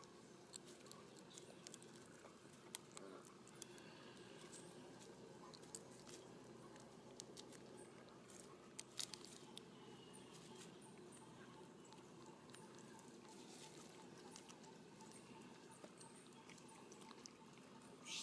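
Faint, scattered crackles and ticks of dry leaf litter as a macaque walks over it, with a few louder clicks about nine seconds in, over an otherwise quiet background.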